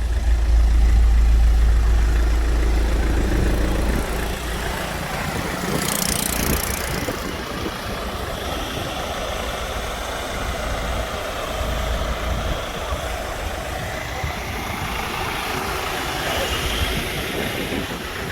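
Motor vehicle engine running with road noise, a deep rumble in the first few seconds, and a brief hiss about six seconds in.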